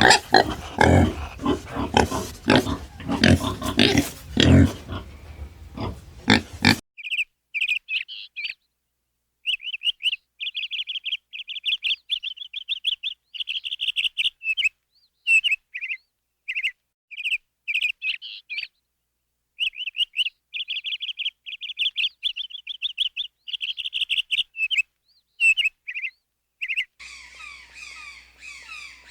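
Animal calls from a sequence of clips. First about seven seconds of loud, rough, low-pitched animal vocalizations. Then, after an abrupt cut, a bird-like high-pitched chirping in rapid runs with short pauses, and near the end another noisier clip of high calls.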